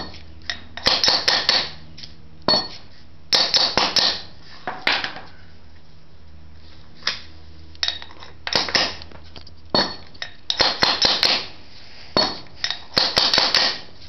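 Light, rapid hammer taps on a steel driver, metallic clinking in bursts of several strikes with short pauses between, as a driveshaft carrier bearing is tapped down onto the shaft by its inner race.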